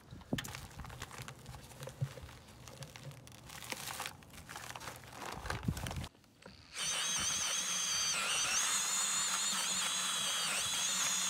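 A paper bag of dry parge mix crinkling and rustling as more mix is poured into a plastic bucket. About seven seconds in, a DeWalt mixing drill with a paddle starts and runs steadily with a high whine that wavers a little in pitch, mixing the parge to a thicker consistency.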